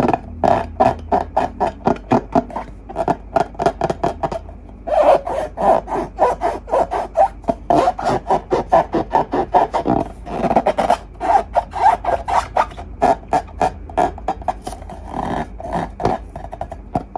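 Hands squeezing and rubbing slime: a quick, uneven run of short sticky crackles and rubbery squeaks, several a second, broken by brief pauses.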